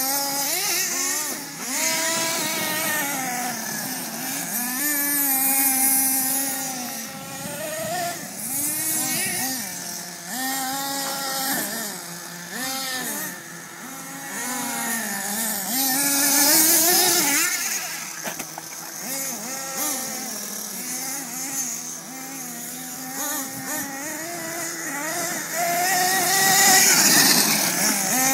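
Radio-controlled off-road car's motor running hard on a gravel track, its pitch rising and falling constantly as the throttle is worked, with a hiss of gravel and dust thrown by the tyres.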